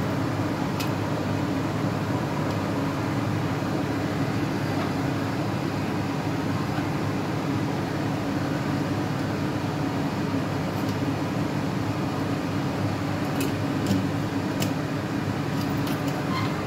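A steady low mechanical hum throughout, with a few short metallic clicks in the second half as the stainless-steel pressure cooker's lid is handled and fitted on.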